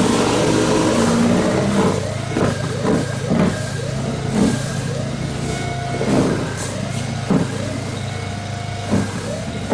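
Snow Joe iON18SB 40-volt cordless snow blower's electric motor and auger running steadily while clearing wet, slushy snow. Its whine rises and falls in pitch about once a second as the load changes.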